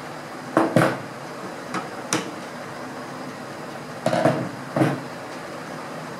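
Screwdrivers and tools clacking against a hard tabletop and the rifle's metal parts as they are put down and picked up: a few sharp knocks about half a second in and near two seconds, then another cluster around four to five seconds, over a steady background hiss.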